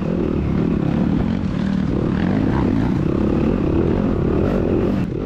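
Yamaha YZ250FX's single-cylinder four-stroke engine running hard under load on a woods trail, its note rising and falling with the throttle.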